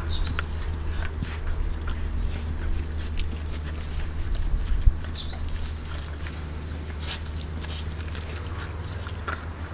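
Puppies gnawing a large raw meaty bone: irregular clicks and scrapes of teeth on bone, with a sharper knock a little before five seconds in. A steady low hum runs underneath, and two short high chirps come near the start and about five seconds in.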